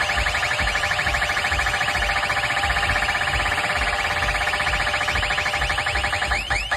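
Electronic siren-style effect played loud through a DJ sound system during a sound check: a rapid warble over a pulsing bass beat. Near the end the warble slows into separate sweeping chirps.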